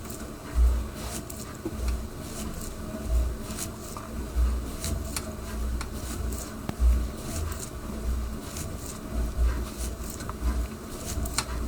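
Stationary exercise bike being pedalled, its flywheel whirring over a steady low hum. Deep thuds come about once a second, with light clicks scattered between them.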